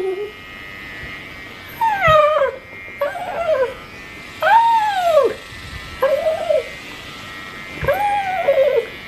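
Small dog whining in about five short cries that rise and fall in pitch, while an electric pet clipper runs with a steady hum as its coat is clipped.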